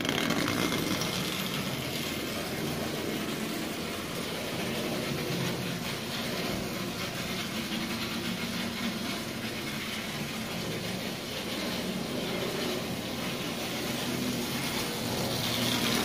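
Marx Commodore Vanderbilt tinplate toy locomotive running forward on three-rail tinplate track, its Marx electric motor and wheels making a steady running sound that grows a little louder near the end as the engine comes close.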